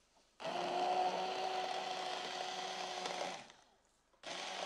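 Hand-held immersion blender running in a pot, puréeing boiled fish and vegetables for a fish soup: a steady motor whine for about three seconds, a short stop, then a second run of about a second near the end.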